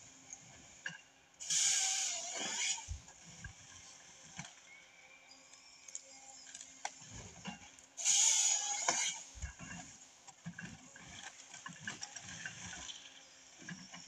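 John Deere 1070G harvester bucking a large pine stem: the harvester head's chain saw cuts through it twice, shortly after the start and again about halfway, each cut lasting a second or so. Between cuts the diesel engine hums steadily, with knocks and thuds as the stem is fed through the head.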